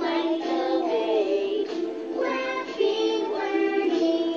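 Fisher-Price Linkimals electronic toys playing a children's song: a synthetic-sounding sung melody over music through the toys' small speakers.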